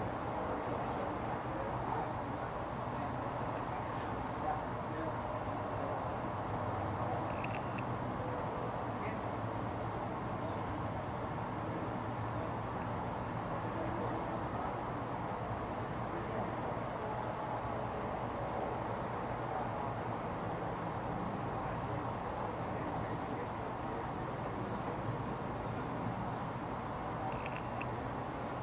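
A cricket trilling on one high, unbroken note over a low steady rumble of background noise.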